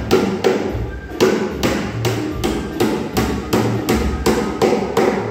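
Steady hammering on a plywood cabinet joint, quick even blows about three a second, over background music with a low bass line.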